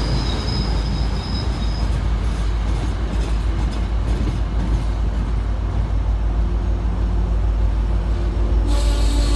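MBTA train running with a steady low rumble, and a thin high wheel squeal over the first two seconds that fades away. Near the end the sound changes abruptly to brighter audio with steady tones.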